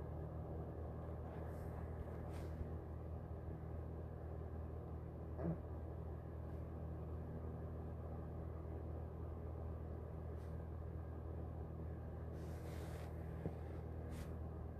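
Steady low machine-like hum of background noise, made of several constant low tones, with a few faint clicks scattered through it.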